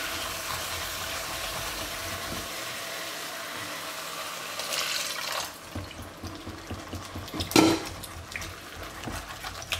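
Red-wine marinade sizzling in a hot enamelled cast-iron pot of seared boar meat while a wooden spoon scrapes and stirs the bottom to deglaze it. The sizzle dies down a little past halfway, and a single sharp knock comes near the end.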